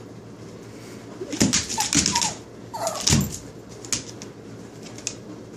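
Chocolate Labrador puppy and Pomeranian puppy playing: short whining yips with rustling scuffles about a second and a half, two and three seconds in, then a few light clicks.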